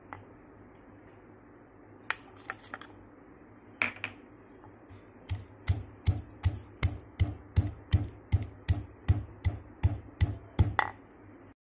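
Stone pestle pounding whole peppercorns, cumin and coriander seeds with garlic cloves in a stone mortar, crushing them coarsely. A few scattered strikes come first, then about halfway in a steady beat of about three strikes a second.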